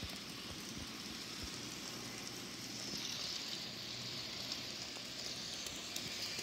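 Electric model trains running on the layout's track, a steady whir and rumble that grows a little louder about three seconds in, with a few faint knocks from the iPad being handled.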